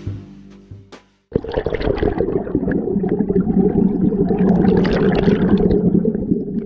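The last note of intro music dies away, then about a second in the loud, steady rush of a flowing creek cuts in.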